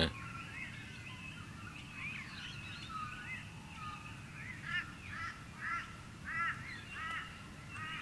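Dawn chorus of several birds with scattered whistles and calls. About halfway through, a run of harsh, evenly spaced caws from Torresian crows, about two a second, stands out as the loudest sound.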